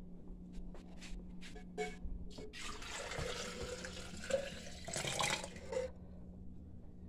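Water running into a kitchen sink for about three seconds, starting a little over two seconds in and stopping sharply, after a few light clicks and knocks.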